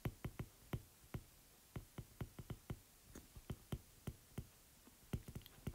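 Stylus tip tapping and clicking on a tablet's glass screen while handwriting: a run of faint, sharp, irregular clicks, about four a second.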